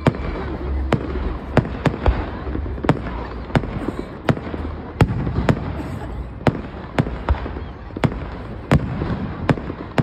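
Fireworks display with aerial shells bursting in quick succession: about a dozen and a half sharp bangs, irregularly spaced roughly half a second to a second apart.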